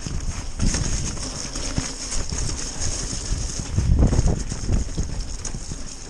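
Mountain bike descending a rough, wet trail: a continuous clatter of chain and frame with irregular knocks from the tyres hitting rocks and roots, over a low rumble.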